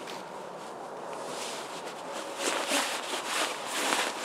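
Rustling of a winter jacket and backpack straps as the pack is slipped off a shoulder, with some shuffling in snow and brush, getting louder in the second half.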